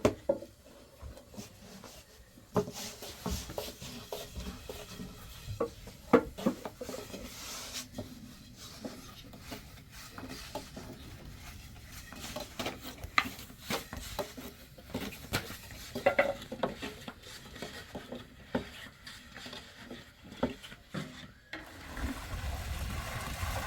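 Metal utensils clinking, knocking and scraping against pots and dishes in irregular strokes, as in stirring and handling cookware. About 21 seconds in this gives way to a steady low rumble.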